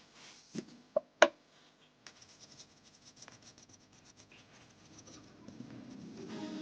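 Three sharp knocks in the first second and a half, the last the loudest, followed by light, irregular scratching and rubbing.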